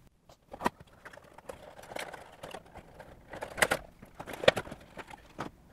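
A cardboard Funko Pop box being opened and handled, and the figure taken out of its plastic tray: rustling with a few sharp clicks and taps.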